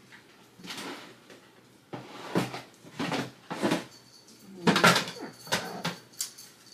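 Rummaging through stationery supplies: a string of about eight short rustles and knocks as things are handled and moved while searching for checklist stickers.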